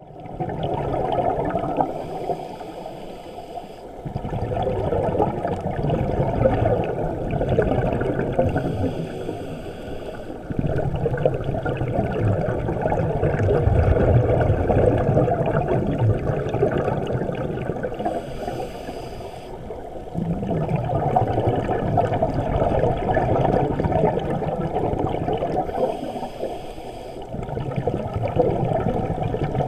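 Underwater camera audio, heard through the housing: a muffled rumble and bubbling of scuba divers' exhaled air from their regulators, swelling and easing in waves. A faint high hiss comes back about every seven seconds.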